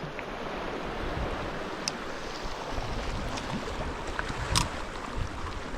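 Sea surf washing against a rocky shore, a steady hiss of water, with a couple of short faint clicks.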